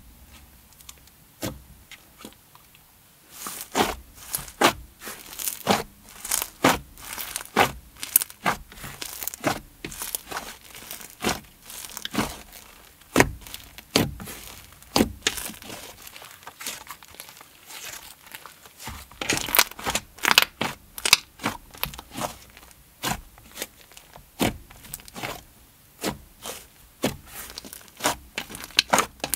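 Inflated clay slime being squished and stretched by hand, giving a dense run of sharp little pops and crackling sizzles from its air pockets. The pops begin in earnest about three seconds in.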